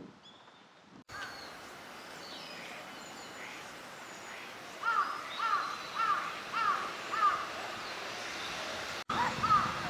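Northern shoveler calling: a run of five short calls about half a second apart, then more calls after a pause near the end. Faint high chirps of small birds sound behind.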